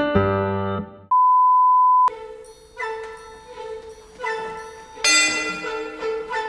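Background music: piano-like notes break off about a second in for a steady one-second beep at one pitch. Then music with chiming bell-like notes over a regular pulse starts.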